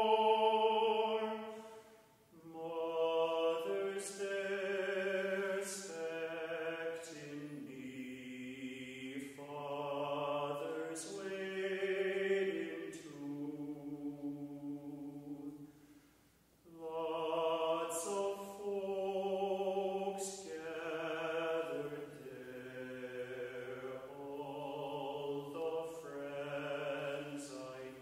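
Mixed choir of men's and women's voices singing slow, sustained chords in phrases, with brief breaks for breath about two seconds in and again about sixteen seconds in.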